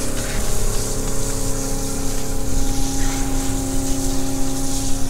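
A motor running steadily, a constant whine of several fixed pitches over a loud rushing hiss.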